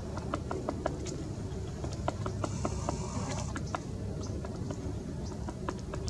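Acorn woodpecker pecking at a palm trunk: light, irregular bill taps, a few a second.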